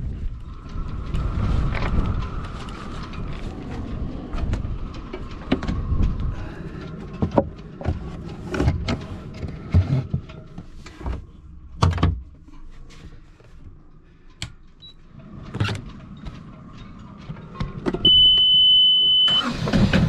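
Gusty wind rushing over the microphone and whistling faintly in the sailboat's rigging, with scattered knocks and clicks of lines and fittings as a reef is put in the sail. Near the end a steady high beep lasts about a second.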